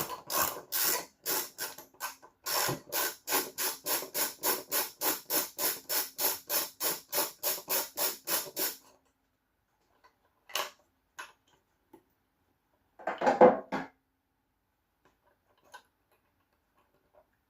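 Socket ratchet clicking in quick, even strokes, about three clicks a second, working a nut on the Lynx Distributor's negative bus bar with a 13mm socket; it stops about nine seconds in. A louder clatter follows near the end.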